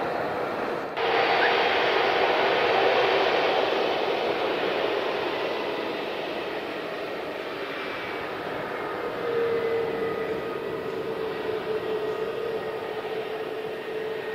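Airbus A321neo airliner's jet engines running, a steady rush with an engine whine, as it moves along the runway. The sound changes abruptly about a second in, and the whine grows stronger about nine seconds in.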